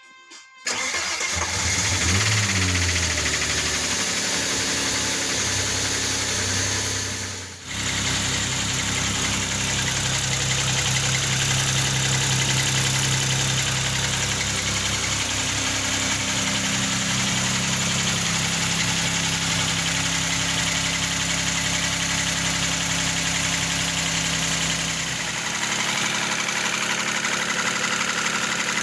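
Opel Omega B V6 engine starting about a second in, revving briefly, then running steadily at idle with a knock that the owner takes for piston knock.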